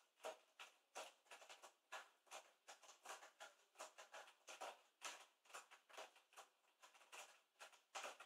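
Faint, quick irregular scratching of cat claws raking the cardboard scratch pad at the centre of a Play & Scratch cat toy, several short strokes a second.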